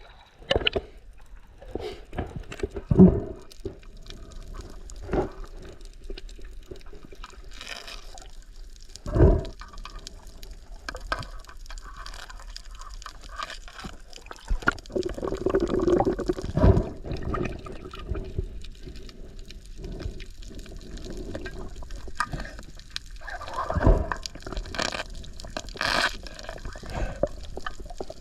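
Water sloshing and gurgling around the camera, broken by irregular knocks and splashes.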